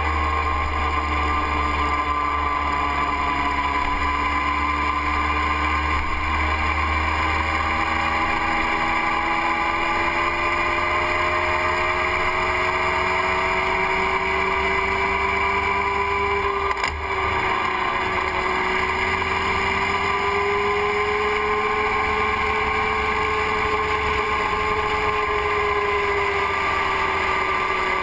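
Motorcycle engine running at cruising speed, its pitch drifting slowly up and down as the speed changes, over a low rush of wind and road noise. There is a brief dip in the sound about two-thirds of the way through.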